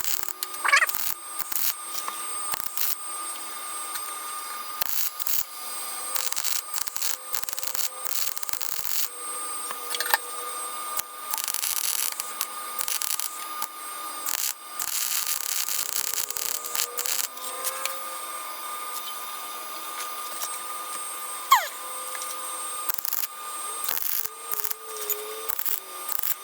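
Irregular scraping and rubbing strokes of tool work on the car's sheet-metal bulkhead, some short and some lasting a second or more, over a steady faint whine.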